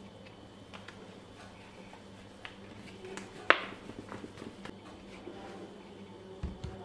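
A filled PET plastic bottle being handled: scattered light clicks and taps of the plastic, one sharp loud click about three and a half seconds in, then a low thump near the end as the bottle is set down on the table.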